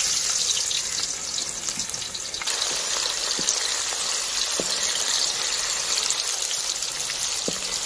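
Chopped onions sizzling loudly in hot oil in an aluminium kadhai as a wooden spatula stirs them, a steady frying hiss. There are three short squeaks at about a second's spacing, midway through and near the end.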